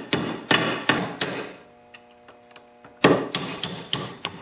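Hammer tapping a roll pin punch to drive the roll pin out of a lawn tractor starter's shaft, with the starter clamped in a steel vise. There are sharp metallic taps about three a second, a pause of about a second and a half, then one harder tap and a run of lighter ones.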